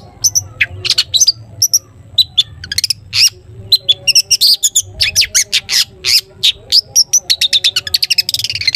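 Long-tailed shrike (cendet) singing: a rapid string of short, sharp, high chirps and whistles that comes faster near the end into a quick run of notes.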